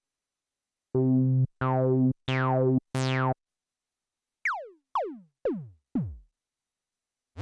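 Korg Minilogue XD synthesizer playing a factory preset. It plays four held notes at one low pitch, each brightening as the filter sweeps open. Then come four short notes that dive sharply downward in pitch and decay quickly, like laser zaps.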